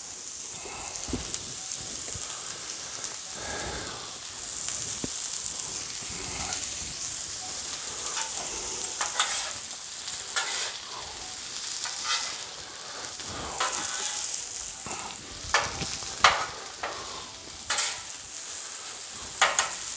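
Shrimp, garlic and ginger sizzling steadily on a Blackstone flat-top griddle as they are stir-fried. From about halfway through comes a series of short sharp scrapes and taps, typical of a metal spatula on the griddle top.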